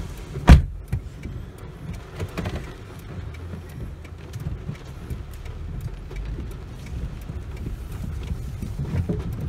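A car door slams shut once, loudly, about half a second in. Then a steady low rumble of a car's engine and road noise follows, heard from inside the car in heavy rain as it moves off.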